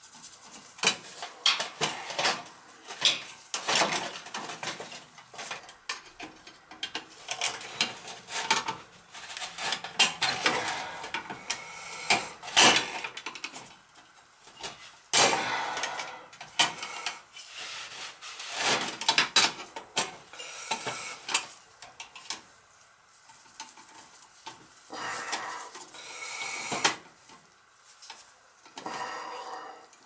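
Irregular metallic clinks, scrapes and rattles of hands working metal parts, armored cable and tools at a boiler's aquastat control while its line-voltage wires are connected. The clatter is busiest in the first half and thins out toward the end.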